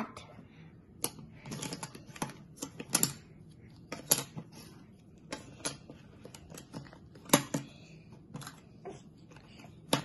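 Cardboard jigsaw puzzle pieces being handled and fitted together on a table: irregular light clicks and taps, with a sharper tap about seven seconds in and another near the end.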